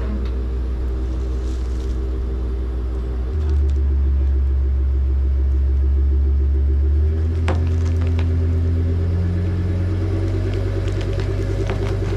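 Work truck's engine running under load as it pulls forward on a chain to tear a shrub out by its roots; it gets louder about three seconds in as it takes the strain. A few short sharp cracks come through in the second half.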